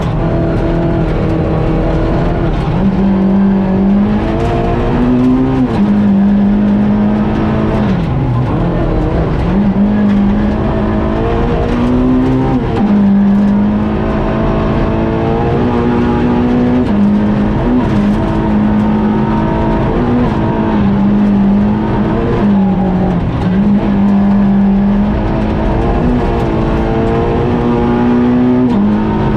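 Skoda Fabia R2 rally car engine heard from inside the cabin, running hard at high revs on a gravel stage. Its pitch holds high, then dips and climbs back again every few seconds, over a constant rush of gravel and road noise.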